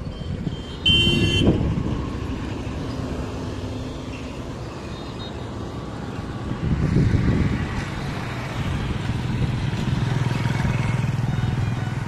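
Road traffic running past, with a steady low rumble. A brief shrill tone comes about a second in, and a louder vehicle passes from about seven seconds in.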